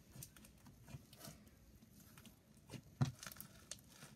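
Sticky slime being stretched and kneaded by hand: scattered wet clicks and squelches, the loudest about three seconds in.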